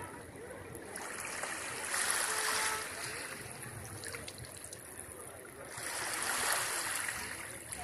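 Small waves washing up the sand at the water's edge, the wash swelling twice: about two seconds in and again near six seconds.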